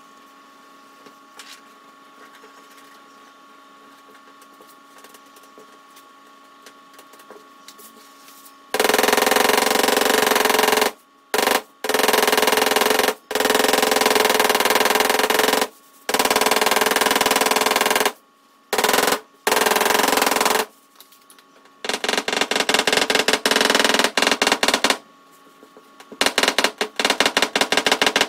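Dent repair hammer and knockdown punch tapping very rapidly on the dented aluminium bonnet of a Nissan Skyline GT-R (R32). The tapping follows a quiet stretch with faint ticks and starts about nine seconds in. It comes in long, loud runs of fast taps broken by short pauses.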